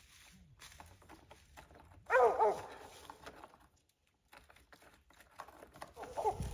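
Mountain cur squirrel dog barking at a tree: a quick pair of barks about two seconds in and another bark near the end, with dry leaves crackling underfoot between them.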